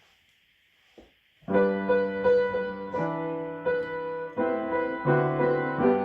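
Piano playing the introduction to a simple recorder piece, a series of sustained chords that change about every second, starting about a second and a half in after near silence.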